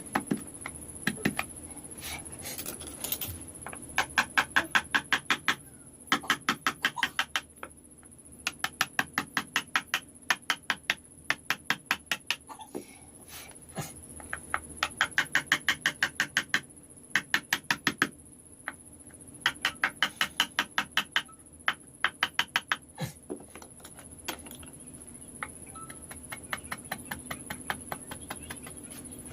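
Quick repeated tapping of a mallet on a wood-carving chisel, about six strikes a second, in runs of a second or two separated by short pauses.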